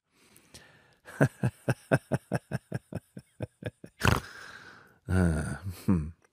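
Kitten lapping milk from a glass bowl: quick wet laps, about four a second, then a louder slurp. Near the end comes a low, throaty grumbling sound lasting about a second.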